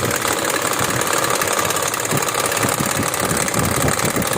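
BMW 2002's four-cylinder engine running with a fast, even knocking from inside the engine. The knock is an internal engine fault serious enough that the engine is to be pulled out for repair.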